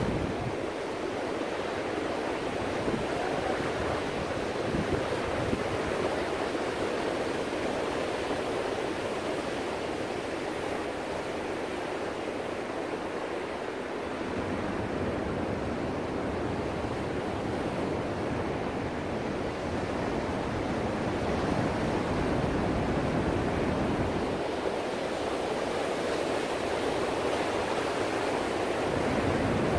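Ocean surf breaking and washing ashore in a steady rush. A deeper rumble comes in about halfway through, fades again, and returns near the end.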